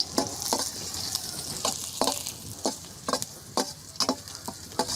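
Raisins sizzling in hot ghee in a kadai, stirred with sharp scraping clicks against the pan about twice a second over a steady high hiss.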